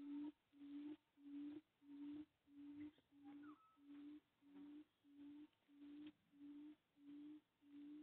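Faint low hooting call repeated steadily, about one and a half notes a second, each note a single steady pitch. A short sweeping chirp comes about three and a half seconds in.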